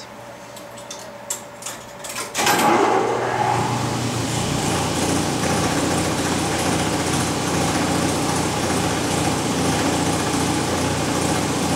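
Automatic orchestrion's vacuum pump switching on about two seconds in, after a few faint clicks, rising in pitch as it spins up and then running steadily with a rush of air and a low hum, the vacuum system getting ready to play.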